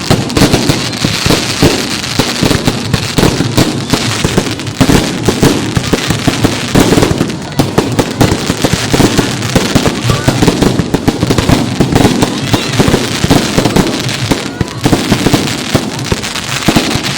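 Fireworks display: a dense, continuous run of bangs and crackling bursts following closely one after another.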